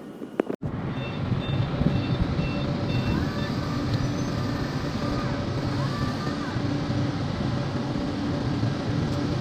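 Heavy machinery running steadily with a low pulsing hum, starting abruptly after a brief gap, with a short series of high beeps about a second or two in.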